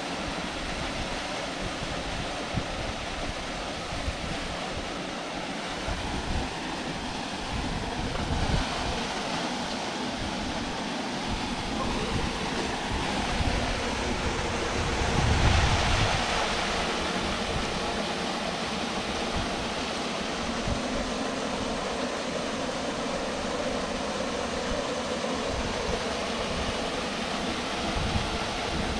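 Small waterfall splashing into a pool: a steady rush of falling water, with wind buffeting the microphone, strongest about halfway through.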